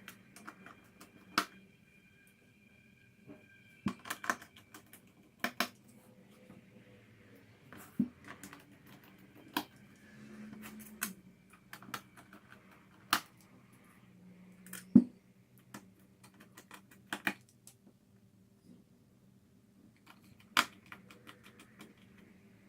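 Irregular sharp clicks and taps from small tools and laptop parts being handled, with the loudest click about two-thirds of the way through.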